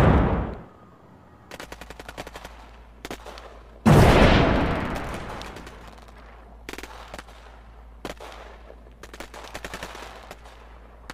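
A loud, sudden boom about four seconds in that dies away over about two seconds, following the tail of an earlier boom, with stretches of rapid crackling pops before and after it.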